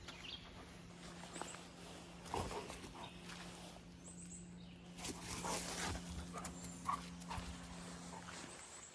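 Faint, irregular footsteps and scuffs of a person walking outdoors with a dog, over a faint steady low hum and a few brief high chirps.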